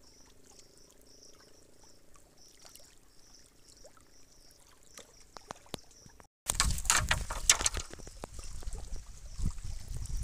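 Faint water lapping with a faint high chirp repeating a few times a second. After an abrupt cut a little past halfway, loud rough rumbling and knocking from the camera being handled and from footsteps on rock.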